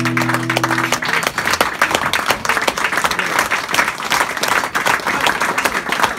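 Audience applauding at the end of a live song; the song's last held notes ring out and stop about a second in, and the clapping continues steadily after.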